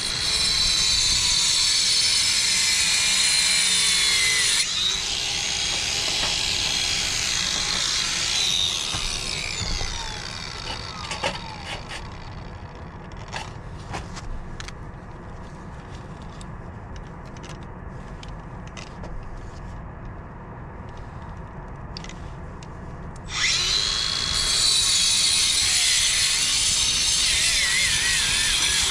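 Angle grinder cutting into a brick chimney's mortar joint to make the slot for counter flashing. It runs hard, winds down about ten seconds in, leaving a stretch of scattered taps, then starts cutting again for the last five seconds or so.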